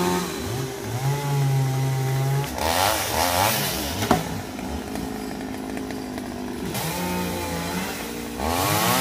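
Several gasoline chainsaws running at once while cutting tree branches, their engine pitch rising and falling as they rev and ease off, overlapping one another. The saws are louder for the first couple of seconds and again near the end, with a brief sharp click about four seconds in.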